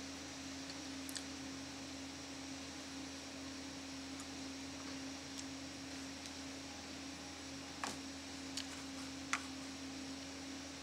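A steady hum over faint hiss, with a few soft computer-mouse clicks: one about a second in and three more between about eight and nine and a half seconds in.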